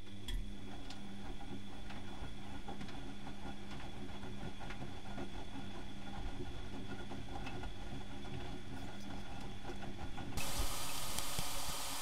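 Bauknecht WAK 6950 washing machine turning its drum: a steady motor hum with scattered clicks. About ten seconds in, the hum stops and a steady hiss of water flowing into the machine begins.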